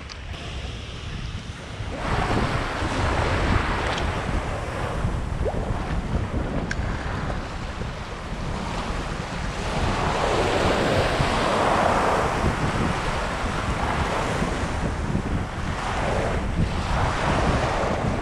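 Small waves breaking and washing up a sandy beach at the water's edge, swelling and easing several times, the biggest wash a little past the middle. Wind rumbles on the microphone throughout.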